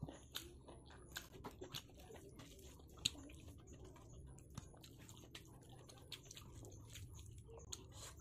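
Faint close-up eating sounds: chewing and wet mouth clicks, with fingers squishing and mixing rice on a plate. A string of soft clicks, with one sharper click about three seconds in.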